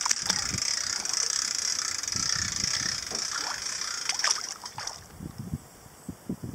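Kayak paddle strokes: water splashing and dripping off the blades with a steady hiss. The paddling stops about five seconds in and it goes quieter, with a few soft low thumps.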